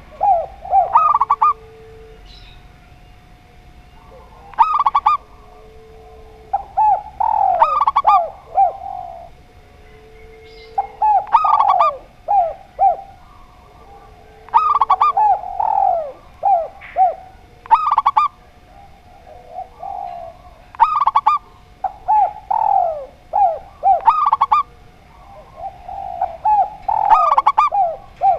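Zebra dove (perkutut) and spotted dove (tekukur) cooing. A run of quick, bright coos comes about every three seconds, with a shorter, lower coo in between.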